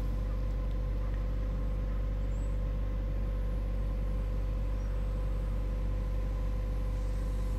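Steady low hum with faint steady higher tones, unchanging throughout, with no distinct events.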